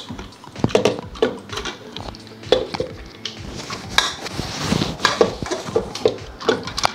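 A metal potato masher mashing boiled green peas and potatoes in an aluminium pressure cooker, knocking and clanking irregularly against the bottom and sides of the pot.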